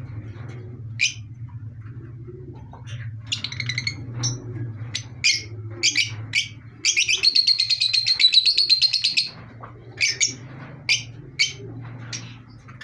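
Pet parrots chirping in short, sharp calls, with a fast chattering trill of about two seconds in the middle.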